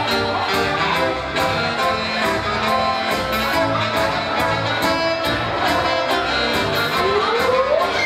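Live dance-band music from keyboards and electric guitar: a medley played over a steady, even beat, with a melody line that slides upward near the end.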